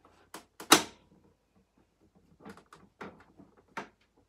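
Hard plastic toy parts knocking and clicking as window pieces are handled and fitted onto a plastic toy camper: one sharp, loud knock under a second in, then a cluster of lighter clicks and taps later on.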